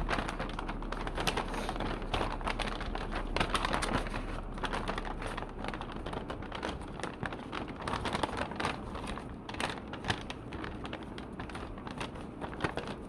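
Packaging being handled by hand: a dense, continuous crinkling and rustling made of many small crackles.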